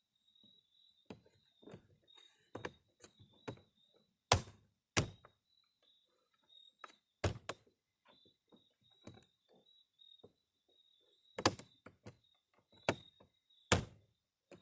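A series of sharp, irregular thunks and knocks on a car's front door, the loudest coming in pairs and threes, as the door is reassembled after an interior door handle replacement. A faint steady insect chirp runs underneath.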